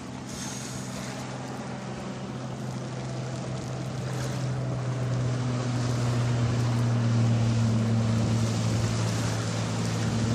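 A boat's engine running steadily with a low hum, gradually growing louder as it draws closer.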